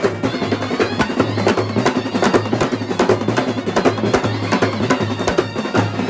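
Kerala brass band set playing a Malayalam film song: brass, with a held low bass note, over fast, dense drumming on stick-beaten side drums and tenor drums.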